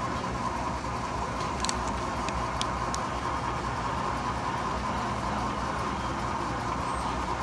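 Laser engraver running while it etches a glass whiskey bottle: a steady machine hum with a held mid-pitched whine, and a few faint ticks between about one and a half and three seconds in.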